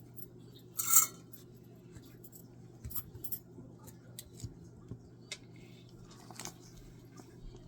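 Small metal tools being handled, clicking and clinking. There is one louder, brief clatter about a second in and scattered light taps after it, over a steady low hum.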